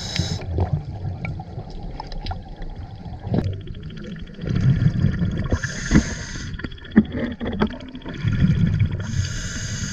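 A diver breathing underwater through a scuba regulator: two long rushes of exhaled bubbles, about four and a half seconds in and again near the end, each with a high hiss. Small scattered clicks run between them.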